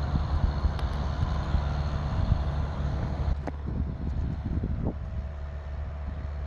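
Steady low outdoor rumble that eases a little about three and a half seconds in, with a faint click there and a few faint short sounds after it.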